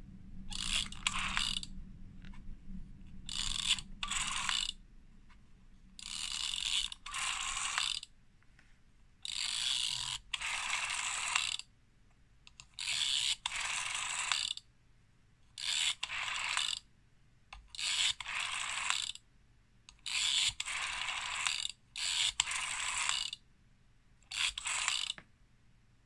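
Vintage rotary telephone dial being dialled digit after digit: each time the finger wheel is wound round and then springs back on its own with a ratcheting whirr, with short pauses between digits as a phone number is entered.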